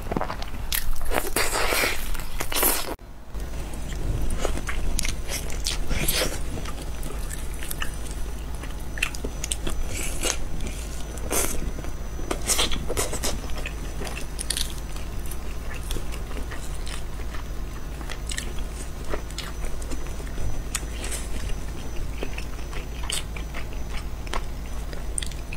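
Close-miked biting and chewing of spicy roast chicken: sharp wet mouth clicks and smacks, densest in the first few seconds. A steady low hum sits under the chewing after a cut about three seconds in.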